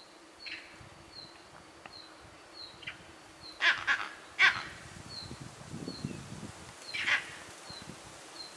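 Short honking animal calls, three close together about three and a half to four and a half seconds in and one more about seven seconds in, over a faint high chirp repeating about every two-thirds of a second.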